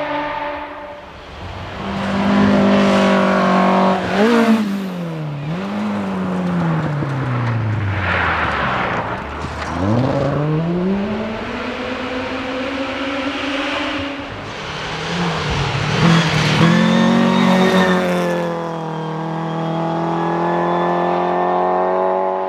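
Rally cars going by at speed, engines revving hard. The pitch jumps with gear changes and lifts, and swoops down as a car passes, then climbs again as it accelerates away.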